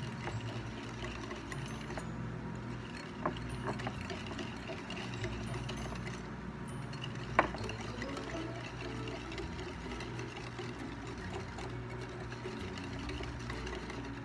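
Wire whisk beating instant coffee, sugar and hot water by hand in a plate, a rapid, steady clatter and scrape of the wires against the plate, at the early stage when the mixture is still dark and runny. A sharp clink about three seconds in and a louder one about seven seconds in.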